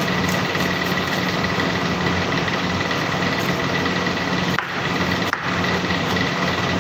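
Steady drone of commercial kitchen machinery, a fan or motor running with a constant high whine over a low hum, with two brief dips in level about two-thirds of the way through.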